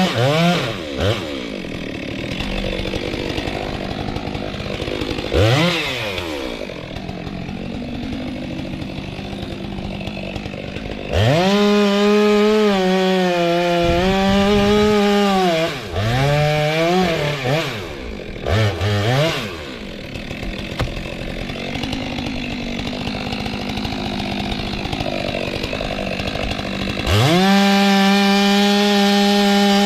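Stihl two-stroke chainsaw cutting through frangipani trunk: the engine's pitch sinks under load in the cut, then climbs high when the chain runs free. Several quick throttle releases and re-revs come about 5 seconds in and again about 15 to 19 seconds in.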